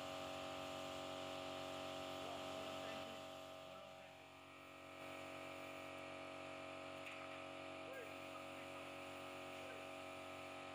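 Faint steady hum of an air compressor supplying a paint spray gun, with the gun's hiss fading out about three seconds in.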